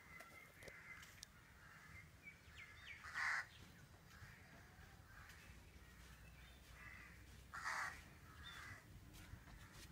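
Crows cawing outdoors: two short harsh caws, about three seconds and about seven and a half seconds in, with a few faint bird chirps in between.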